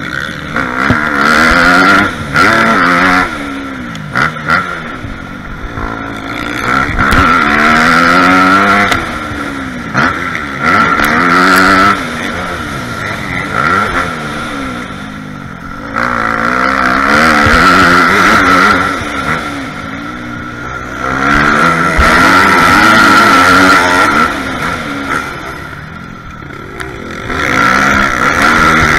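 Dirt bike engine heard from the rider's helmet, revving up again and again as the throttle is opened and shifted through the gears. Loud full-throttle pulls of a second or two alternate with quieter off-throttle stretches.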